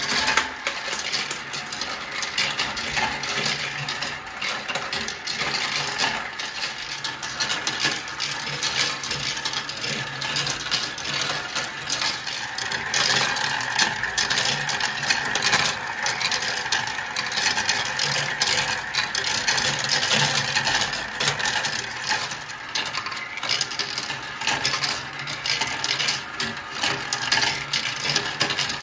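Plastic marble run with a motorized chain elevator: the lift's small electric motor runs with a steady hum while marbles clatter and click in quick succession along the plastic tracks and spirals.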